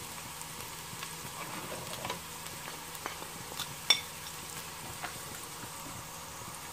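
Chopped onions and garlic sizzling gently in hot oil in a pot, with a few light clicks and one sharp clink about four seconds in.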